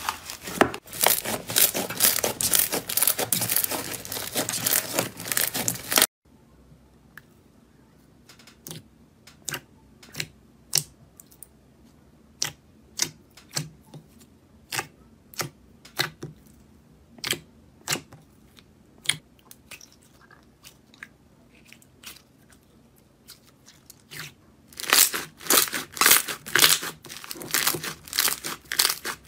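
Slime being worked by hand. For the first six seconds a fluffy green slime is stretched and torn, making a dense crackly tearing sound that stops abruptly. A glossy blue slime is then pressed with sparse, sharp clicks and pops, and near the end it is squeezed with dense crackling again.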